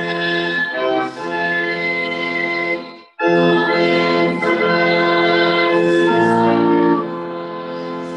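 Church pipe organ playing sustained chords, breaking off briefly about three seconds in before coming back with a full, loud chord.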